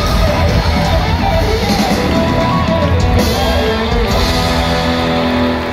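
Live rock band playing loud: a drum kit and electric guitar, amplified over a concert PA.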